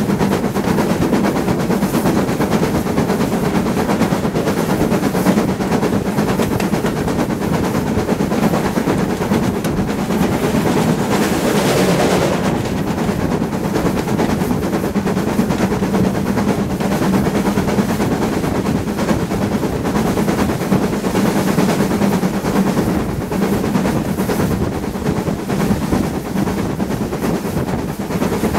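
Steam locomotive running under way, heard close up from its cab: a rapid, steady stream of exhaust beats mixed with the rumble and clatter of the wheels on the rails. A louder rush of hiss comes about halfway through.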